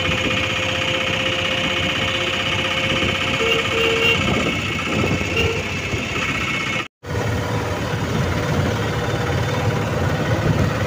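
Auto-rickshaw engine running steadily as it drives, heard from inside the passenger compartment, a rumble with a steady whine over it. A few short horn beeps come between about three and a half and five and a half seconds in, and the sound cuts out for a moment about seven seconds in.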